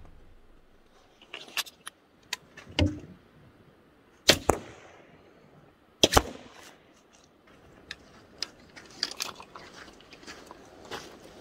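A crossbow fired twice, about two seconds apart. Each shot is a sharp crack followed a split second later by a second knock. Light mechanical clicks and handling noises come before and after the shots.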